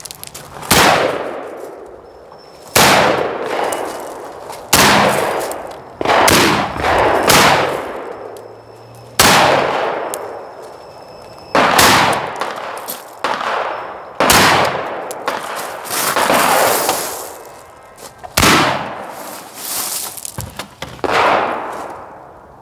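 Rock River Arms CAR A2 AR-15 carbine firing single semi-automatic shots, about a dozen, spaced one to two seconds apart with some quick pairs, each shot followed by a ringing echo.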